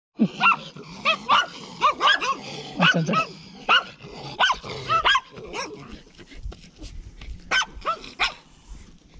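Small dog barking in a quick run of short, high yaps, about a dozen in the first five seconds, then a few more near the end.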